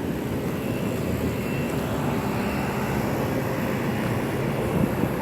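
Outdoor air-conditioning condensing units running: a steady drone of compressors and condenser fans, with a low hum.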